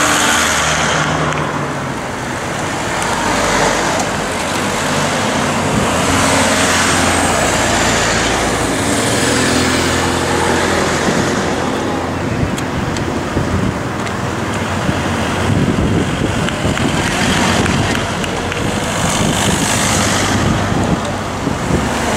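Team cars of a cycling race convoy passing close by one after another at climbing speed, engines running and tyres on the road. The sound swells a little as each car goes by.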